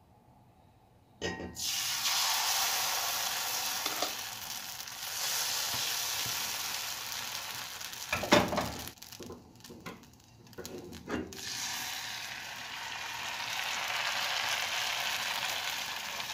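Appam batter sizzling in a hot black cast-iron appam pan, starting suddenly about a second in as the batter goes into the pan. A sharp metal clank about halfway through, a brief quieter stretch with a few clicks, then steady sizzling again.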